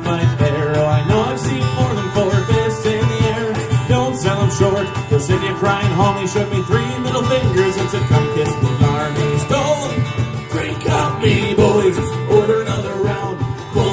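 Live band playing an instrumental passage: strummed acoustic guitar, electric guitars and a cajón keeping a steady beat, with a wavering lead melody on top.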